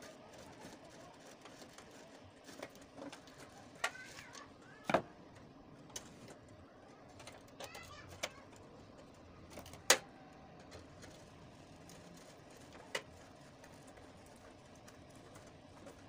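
Scattered sharp clicks and knocks of a screwdriver and hand working a gas heater's ceramic burner plate into its sheet-metal housing, about half a dozen spread out, the loudest knock about ten seconds in.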